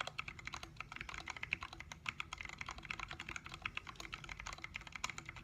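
Continuous fast typing on a Planck mechanical keyboard with lubed 78 g Zealio tactile switches, a stainless steel plate, an aluminium case and XDA Canvas keycaps: a dense, unbroken run of key clacks, several a second.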